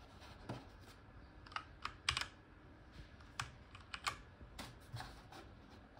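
Light, irregular clicking of a computer mouse and keyboard in use, about ten separate clicks.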